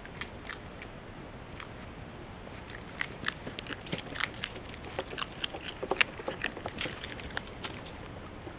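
North American river otter moving over a wooden boardwalk close to the camera, its claws and feet making a quick, irregular run of clicks and taps on the planks, loudest about six seconds in, over a faint steady hiss.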